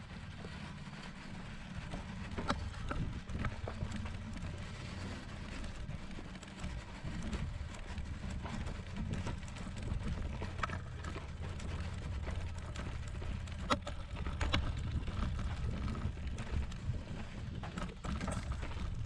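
Bicycle rolling over sandy, packed ground: a steady low rumble with a few sharp clicks and rattles as it jolts over bumps.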